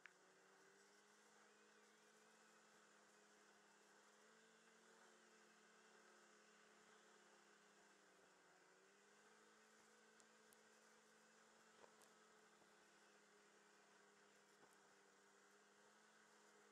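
Very faint steady hum of a snowmobile engine under way, its pitch dipping briefly about eight seconds in, with a few faint ticks.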